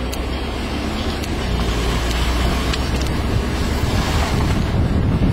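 Wind buffeting the microphone at an open car window while the car drives along, over a low rumble of road and engine noise, getting a little louder toward the end.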